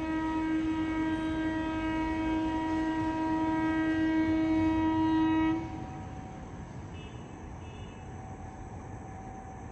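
Locomotive horn of an approaching train sounded in one long, steady blast that cuts off suddenly about five and a half seconds in, leaving the train's low rumble.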